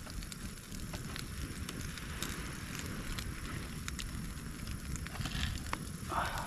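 Open wood fire burning, with scattered crackles and pops over a low steady rumble, and a short scuffing noise near the end.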